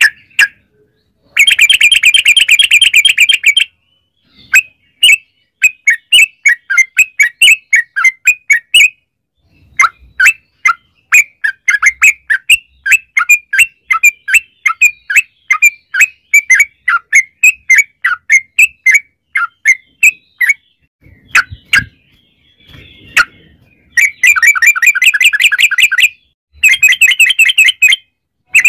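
Yellow-vented bulbul (trucukan) singing loudly in long, fast chattering runs: rapid rattling trills near the start and end, and a long series of quick separate notes in between.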